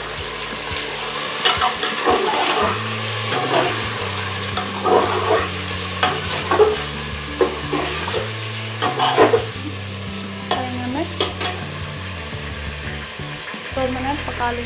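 Mutton pieces and fried onions sizzling in hot mustard oil in an aluminium pressure cooker while they are seared. A steel ladle stirs them, scraping and clinking against the pot about once a second.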